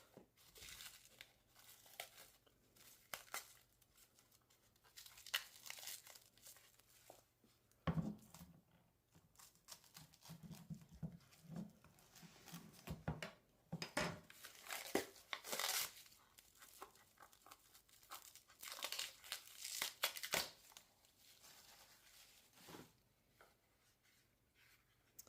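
Packaging being handled and unwrapped from a straight razor's box: scattered bursts of rustling and crinkling wrapping, with a few light clicks and knocks.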